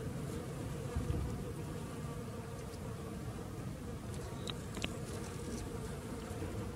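Honeybees buzzing steadily as they forage on ivy blossom.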